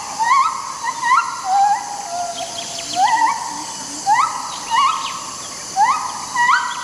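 Unidentified animal calls: short notes repeated about once a second that swoop up and then hold a level whistled pitch, several callers overlapping at different pitches, over a steady high hiss.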